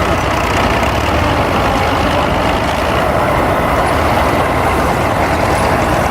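Heavy diesel engine of a piece of antique construction equipment running steadily.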